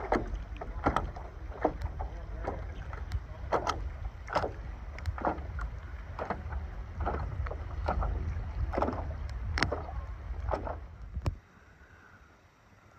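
A paddle dipping and pulling through lake water, splashing in a steady rhythm a little faster than once a second, over low wind rumble on the microphone. The strokes and the rumble stop abruptly near the end, leaving a much quieter background.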